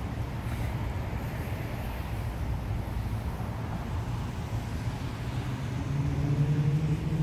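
Steady low rumble of city traffic, with a vehicle engine's hum coming up and growing louder from about six seconds in as it passes.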